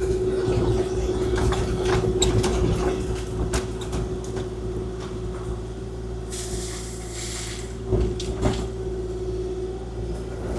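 Kubota KX040-4 mini excavator running under work, its diesel engine humming with a steady hydraulic whine, and scattered knocks and clunks. A brief hiss comes about six seconds in.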